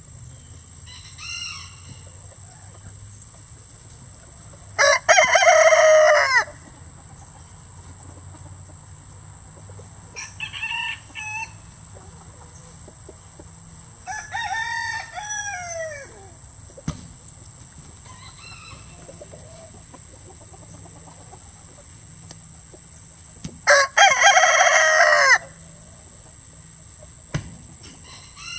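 Roosters crowing: two loud crows, about five seconds in and again near the end, each lasting about a second and a half, with fainter crows and calls from other chickens in between. A steady high-pitched tone runs underneath.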